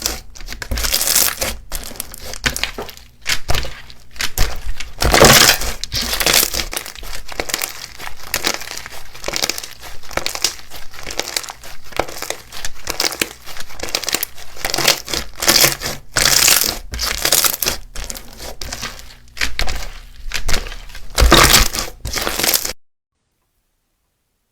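Slime being squeezed, pressed and pulled by hand, giving loud crackling, crinkling pops in quick irregular strokes. It stops suddenly near the end.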